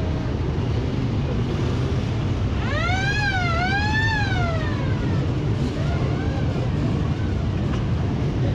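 A siren wailing briefly about three seconds in, its pitch rising and falling twice, over a steady low rumble of passing vehicles.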